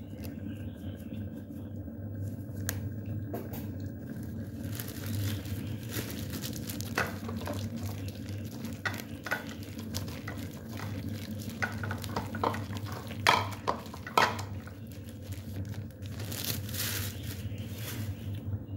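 A hand mixing sliced raw beef into its oyster-sauce and chili-sauce marinade in a ceramic bowl: irregular wet squelches and small clicks against the bowl, sharpest about two-thirds of the way through. A steady low hum runs underneath.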